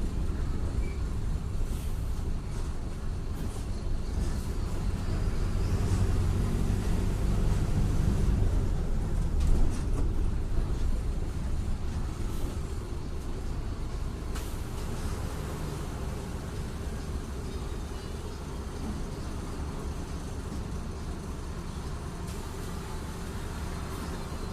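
Mercedes-Benz OF-1721 BlueTec 5 bus's four-cylinder diesel engine running, swelling to its loudest around eight or nine seconds in and then easing off to a lower, steadier level. A few brief knocks and rattles, the sharpest just after the loudest point.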